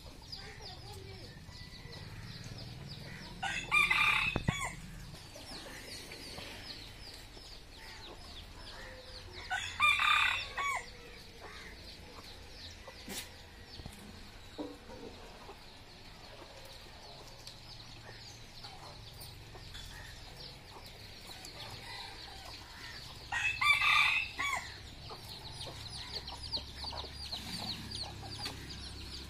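A rooster crowing three times, each crow lasting about a second, over steady high chirping in the background.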